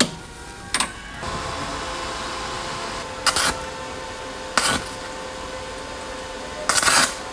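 Stick (MMA) arc welding with aluminium rods at about 140 amps: a steady arc hiss starts about a second in, with a faint steady hum under it and a few short, louder spurts as the fins are tacked on.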